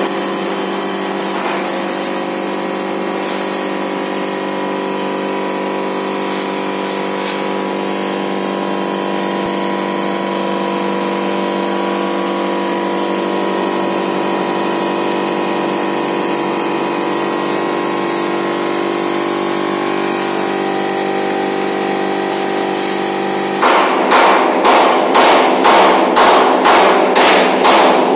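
Paving-block vibrating table running: its vibrator motor hums steadily, with the steel table top buzzing under two filled block moulds. Near the end, a louder regular knocking starts, about two knocks a second.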